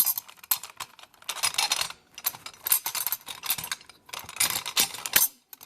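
Steel carriage bolts and mill hardware clinking and rattling as they are handled and fitted, in several short bursts of jingling clicks with brief pauses between.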